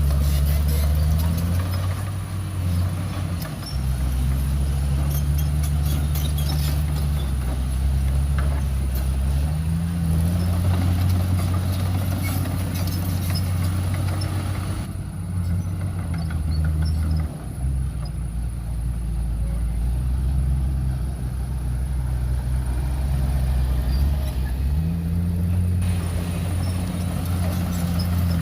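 Heavy diesel engines of earthmoving machines running under load, the engine note stepping up and down several times as they work.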